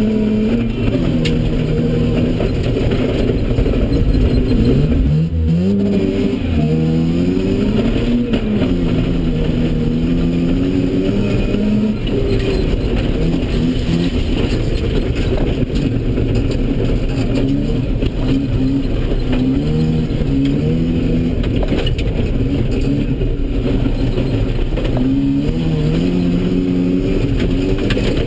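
Mazda RX-7's 13B rotary engine at full effort, heard from inside the cabin: its pitch rises and falls repeatedly as it revs through the gears, with a sharp drop and quick re-rev about five seconds in. Over it runs steady noise from the tyres on the loose dirt surface.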